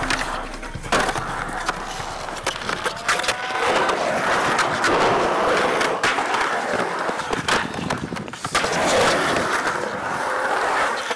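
Skateboard wheels rolling over a concrete bowl, with several sharp clacks of the board striking the concrete.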